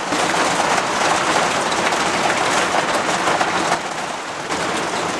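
Small, pea-sized hail and rain striking a step van's roof and windshield, heard from inside the van as a dense, steady patter that eases slightly about four seconds in.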